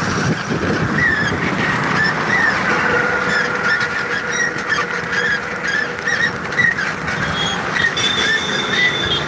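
Steady road-traffic noise, with a short high squeak repeating about every half second and a few brief steady whistling tones.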